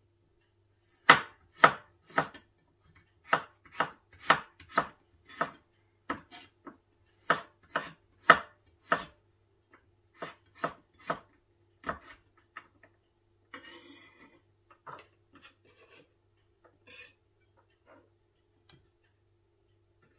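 Chef's knife slicing garlic cloves on a wooden cutting board: sharp knocks of the blade on the board, about two a second for around ten seconds, then a brief scrape and a few faint taps.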